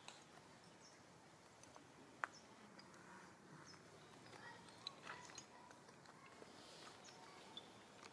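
Near silence: faint outdoor ambience with scattered soft clicks and brief high chirps, and one sharper click a little over two seconds in.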